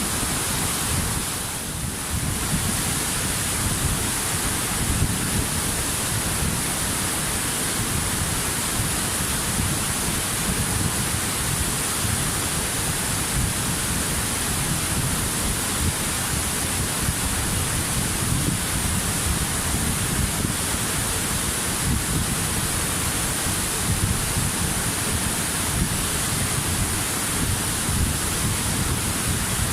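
Waterfall: a steady rushing of falling water, with a brief dip in level about a second and a half in.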